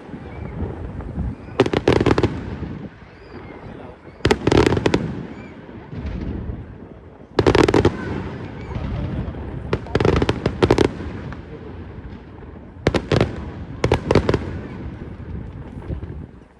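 Aerial fireworks bursting overhead: clusters of rapid loud bangs about every two to three seconds, each cluster echoing away before the next.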